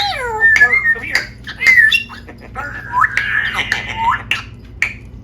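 Pet parrot calling: a busy run of squawks, whistled glides and sharp clicks, with a harsher, buzzier call about three seconds in.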